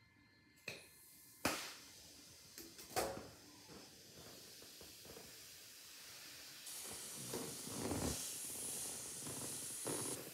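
A few sharp scissor snips at the neck of a clear confetti-filled balloon, then air hissing steadily out through the cut as the balloon deflates; the hiss grows louder and brighter about two-thirds of the way through.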